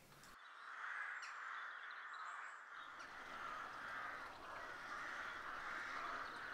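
Crows cawing in a continuous harsh chorus, with a few faint small-bird chirps.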